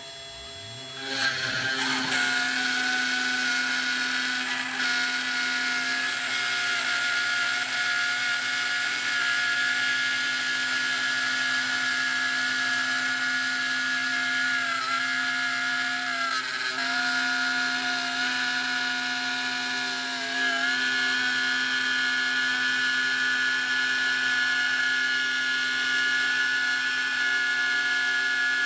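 Eleksmill desktop CNC mill's spindle and bit cutting particle board. The sound comes in sharply about a second in and then runs as a steady machine whine, dipping briefly in pitch a few times as the cutting load changes around the middle.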